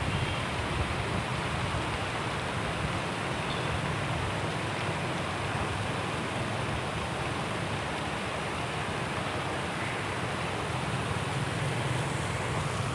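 Steady rushing hiss of a fountain's water jets splashing, with wind buffeting the microphone in a fluctuating low rumble.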